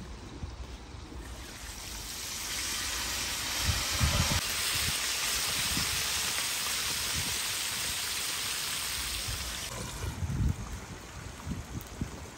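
Chicken pieces frying in a pan of hot oil: a dense sizzling hiss that swells about two seconds in and dies down near the end, with two low knocks, one about four seconds in and one near the end.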